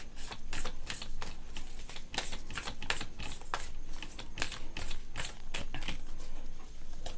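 A deck of oracle cards being shuffled overhand by hand: a quick, uneven run of papery card clicks and flaps, a few per second.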